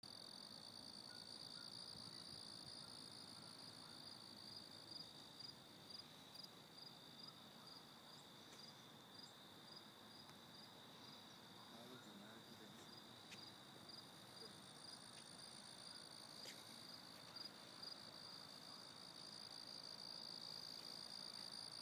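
Faint evening chorus of crickets: a steady high-pitched trill pulsing about twice a second, with a few faint clicks.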